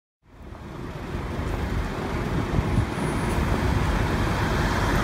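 City street traffic: cars and a bus running at an intersection, a steady road-noise rumble that fades up from silence in the first second.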